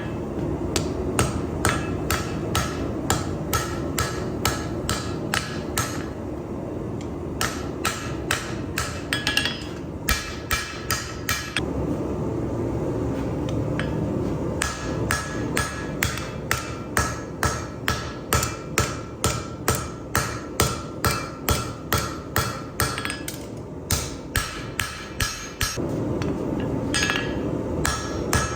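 Hand hammer striking hot knife steel on an anvil as a gyuto blade is forged: steady blows about three a second, each with a short metallic ring. The blows come in runs broken by a few brief pauses, over a steady low rush.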